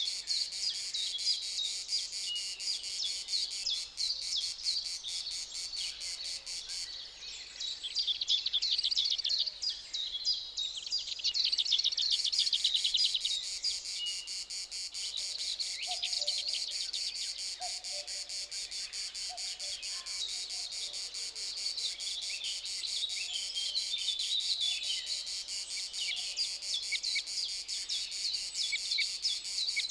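Outdoor chorus of songbirds chirping and trilling over a steady high chirring of insects. A fast bird trill runs for several seconds about a quarter of the way in, and a few short lower calls repeat about every two seconds near the middle.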